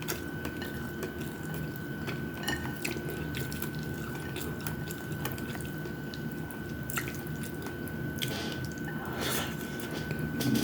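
Wet chewing and mouth sounds of someone eating fried chicken wings and rice, with scattered small crunches and clicks. A faint, steady high-pitched tone runs underneath.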